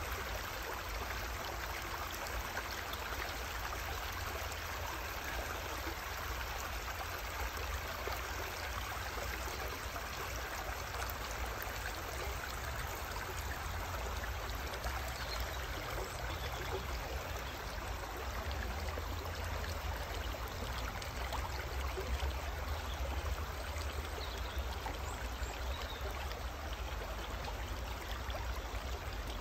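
Shallow river flowing steadily over a pebble bed, an even rushing of water with a steady low rumble underneath.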